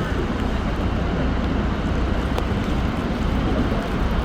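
Tour boat's engine running steadily under a rush of wind and water noise as the open boat moves along the river.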